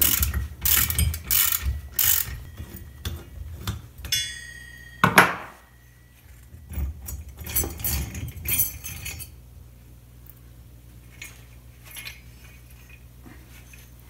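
Socket ratchet clicking in quick strokes as the cylinder head nuts of an 80cc two-stroke engine are undone to take off the head and cylinder. Metal scrapes and clinks follow, with one loud knock about five seconds in, then more clicking and clatter as the parts come off.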